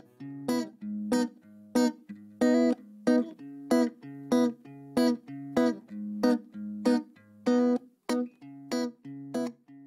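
Music: a guitar strumming chords in a steady rhythm, a little under two strums a second, with the chords changing as it goes.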